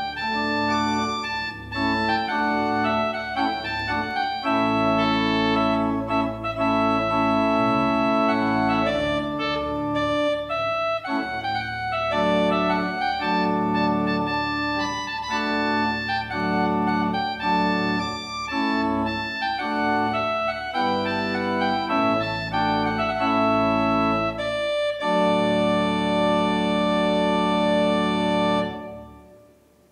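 Organ music: a prelude of sustained chords, ending on a long held chord that dies away shortly before the end.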